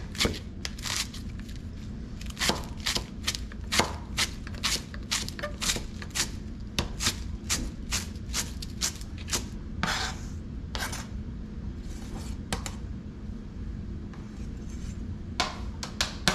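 Chef's knife chopping through shredded leafy greens onto a plastic cutting board: a steady series of sharp knife taps, about two to three a second, that stops about three-quarters of the way in. A few more knocks and scrapes come near the end as the shreds are swept off the board.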